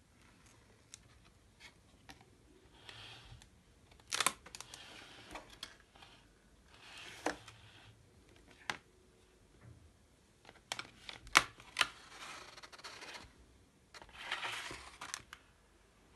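Thick glossy board pages and cardboard flaps of a pop-up book being handled: several short swishes of pages turning, with sharp taps and clicks as the boards and flaps flip over and land, the loudest a little past halfway.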